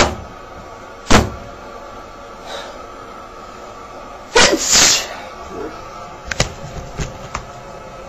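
A person sneezes once, loudly, about halfway through. There is a sharp knock near the start and another about a second in, and a few light clicks after the sneeze, over a faint steady hum.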